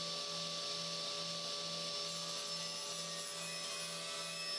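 Table saw running steadily at full speed, its blade spinning with a steady whine and hiss under a low hum that pulses about twice a second. Near the end a slatted hardwood door panel is fed into the blade.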